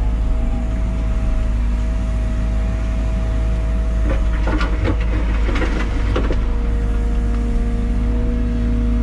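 Liebherr 914 Compact wheeled excavator working, heard from inside the cab: a steady diesel drone with a constant hydraulic whine, which shifts in pitch a little near the end. From about four to six seconds in, a stretch of scraping and rattling comes as the tiltrotator bucket digs into the dirt.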